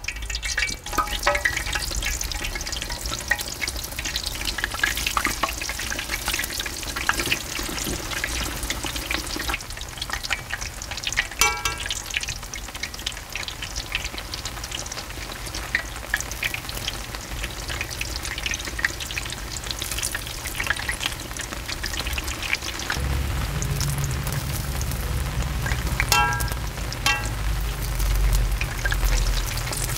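Kkwabaegi dough twists deep-frying in hot oil in a cast-iron cauldron (gamasot), a continuous dense crackling sizzle. A low rumble joins about two-thirds of the way in.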